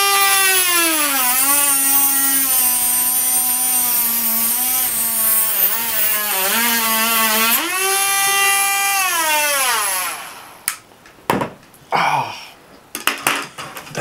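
High-speed rotary tool with a small cutting disc, cutting through the plastic of a SATA connector on a hard-drive converter board. Its whine drops in pitch as the disc bites into the plastic and rises again when it is eased off, then winds down after it is switched off about ten seconds in, followed by a few clicks and knocks of handling.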